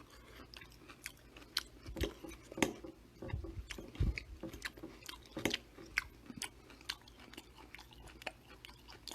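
A person chewing a mouthful of ramen vegetables, with irregular small clicks and mouth sounds.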